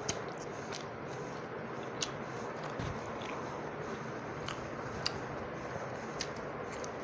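A hand squishing and mixing pakhala, cooked rice soaked in water, in a steel pot: soft wet squelches with a short sharp click every second or so, over a steady background hiss.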